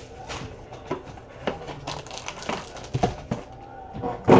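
Trading-card boxes and a foil-wrapped card pack being handled on a tabletop: scattered short clicks and rustles, with one sharp knock near the end.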